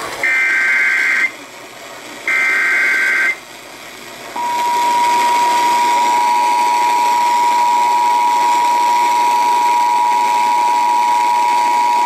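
Emergency Alert System broadcast through an FM radio's speaker: two bursts of the SAME data header, each a harsh warbling digital screech about a second long with a second's gap. Then, about four seconds in, the steady two-tone EAS attention signal, here opening a Severe Thunderstorm Warning.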